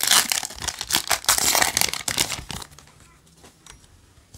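A foil Yu-Gi-Oh! booster pack wrapper being torn open and crinkled by hand, with dense crackling for about two and a half seconds. Then only a few faint ticks as the cards are handled.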